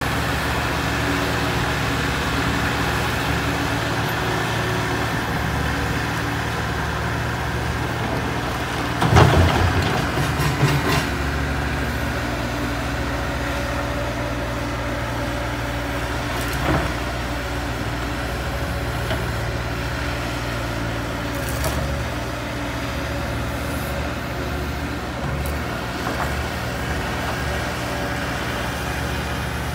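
Diesel construction machinery working steadily, with a loud crash and clatter about nine seconds in and a smaller knock around seventeen seconds.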